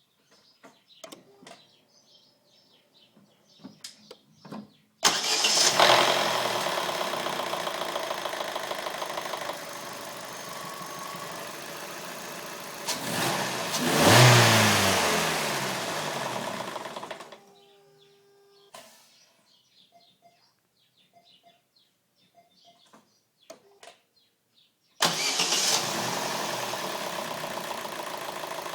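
Opel Astra GTC's Z16XER 1.6-litre four-cylinder petrol engine being started twice, each time with a clatter that stops about two seconds after starting, although the oil is full. The first run is revved once and then shut off; after a pause with a few small clicks, the engine starts again and keeps running.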